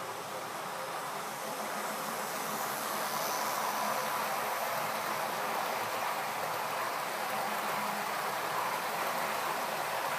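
OO gauge model Class 47 locomotive and its coaches running along the track: a steady whir of the motor and wheels on the rails. It grows louder over the first few seconds as the train comes close, then holds.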